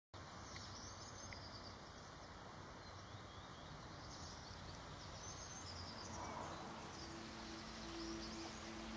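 Faint outdoor ambience: a steady hiss with scattered bird chirps. Soft music with low held notes fades in near the end.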